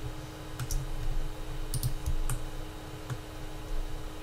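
Scattered clicks of a computer mouse and keyboard, about six short clicks in uneven succession, over a steady electrical hum.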